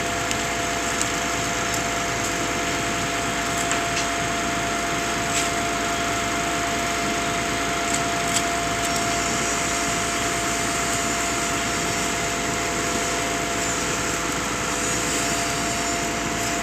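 Concrete pump's machinery running steadily: a constant mechanical hum with a held whine, and a few light knocks.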